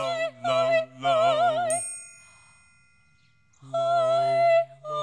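A woman's high voice and a man's low voice singing held notes together, in harmony, with a wavering vibrato: a few short notes, a pause, then one longer note. Between them a bright chime rings once and fades.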